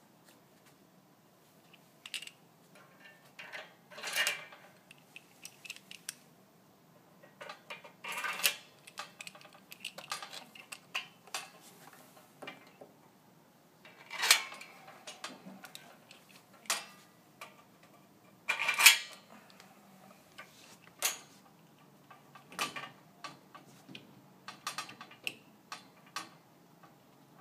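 Irregular metallic clicks, clinks and knocks from a Carlson pressure-mounted pet gate as its bars and pressure spindles are handled and fitted into a doorway, with a few louder knocks among them.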